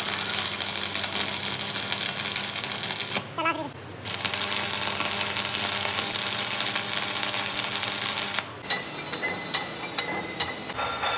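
Lathe cutting a steel shaft: a loud, harsh, steady hiss over a low motor hum. It breaks off briefly about three seconds in, then stops about eight seconds in, leaving lighter ticking and clicking.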